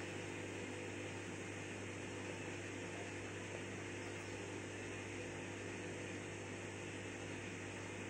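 Bosch Serie 6 8 kg inverter front-load washing machine running its rinse, a heavy wet blanket tumbling in the drum: a steady low hum with even noise over it.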